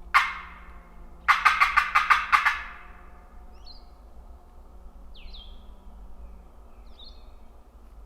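Turkey box call worked in a yelping sequence: one short note, then a quick run of about seven sharp yelps, sent out to make a gobbler answer so the hunters can pin down where he is. A few faint small-bird chirps follow.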